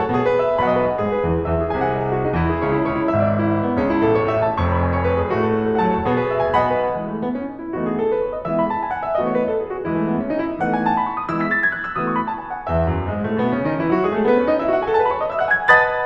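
Piano music playing: full chords over low bass notes at first, then quick scale runs sweeping up and down the keyboard, climbing to a loud peak near the end.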